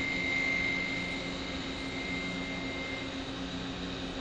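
Okuma LT 300 CNC lathe running: a steady machine hum with a thin high whine that fades out about three seconds in.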